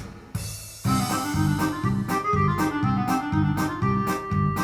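Electronic keyboard backing music with an organ-like sound, playing a melody over a steady drum beat of about two hits a second, starting about a second in.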